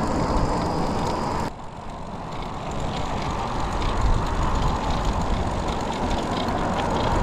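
Wind rumbling on the microphone while riding a bicycle along a road; the noise drops suddenly about a second and a half in, then slowly builds again.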